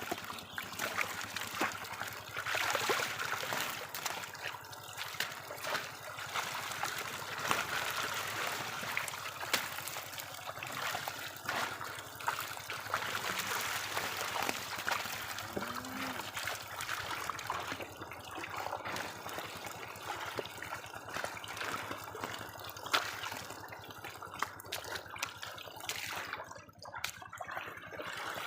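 River water splashing and trickling, with frequent small irregular splashes throughout.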